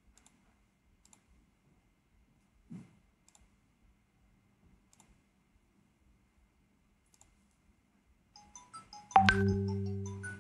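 A few faint mouse clicks, then about eight seconds in an electronic ringtone tune of short high pitched notes begins, with a loud low chord struck about a second later that rings on and fades: the ringtone of an incoming WhatsApp voice call on the computer.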